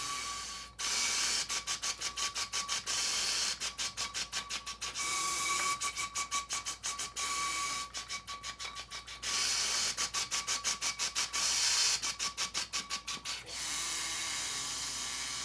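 Breath rushing through a Breath Builder's tube, tongued into runs of rapid pulses, about six a second, between longer unbroken breaths that carry a faint steady whistle. This is the player articulating an étude on air alone while breathing in and out through the device.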